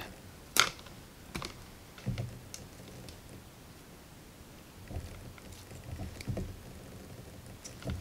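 Hand wire stripper/crimper working the end of a copper wire: a sharp snip-like click about half a second in, then a scattering of fainter clicks and light handling knocks.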